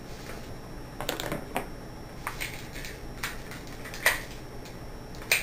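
Hands handling and twisting a small red latex 160 modelling balloon: a run of short rubs and clicks of latex and fingers, with a sharper click about four seconds in and another near the end.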